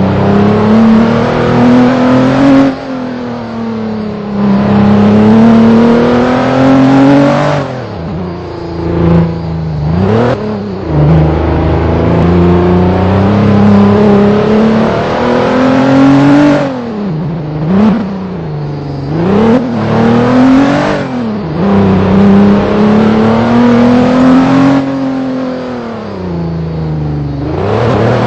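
Vehicle engine under load, revving loud. Its pitch climbs for a few seconds and then falls back, again and again, with a few quick rev blips in between, as it works through changing throttle and gears.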